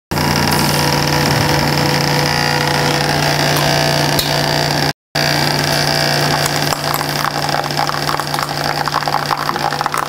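Metal disintegration machine burning out a broken tap: a loud, steady electrical hum, with water from the hollow electrode running over the cast-iron part. From about two-thirds of the way in, the arc at the electrode tip adds a rapid crackle. The sound drops out for a moment about halfway through.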